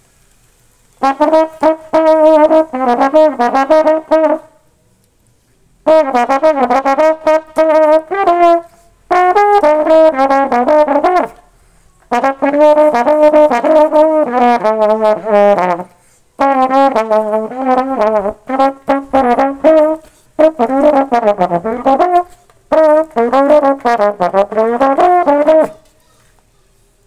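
Valve trombone played solo with no accompaniment: a melody in about seven phrases with short breaks for breath between them. Some phrases end on a note that bends downward.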